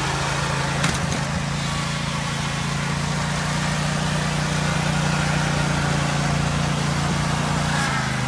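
Riding lawn mower engine running at a steady speed while the mower sits stuck, with a single short click about a second in.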